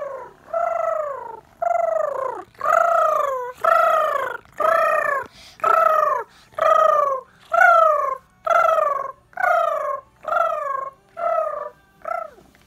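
A girl imitating a pigeon's coo with her voice: a long run of round 'oo' calls, about one a second, each rising and then falling in pitch, the last one shorter.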